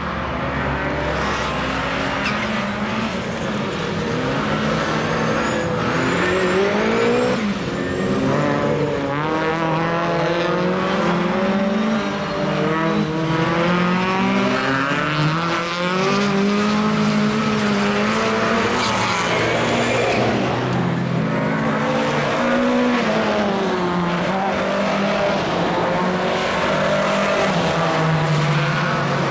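Rallycross race cars lapping the circuit, their engines revving hard: the pitch climbs, drops back at each gear change and climbs again, with several engines overlapping at different pitches.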